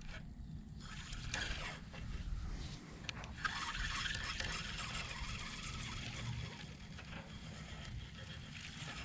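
Faint whirring and handling noise of a spinning reel being cranked as a lure is retrieved, over a low wind rumble on the microphone.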